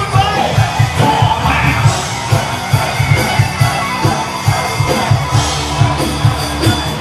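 Live rock band playing loud through a PA, with a fast, steady bass-drum beat, plus singing and some shouting from the crowd.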